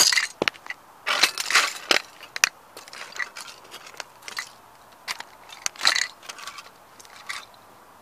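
Leather work boots stomping on the plastic and metal pieces of a model Ferrari toy car on asphalt: one sharp crack at the start, then crunching and crackling as the pieces are ground underfoot, thinning out about seven seconds in.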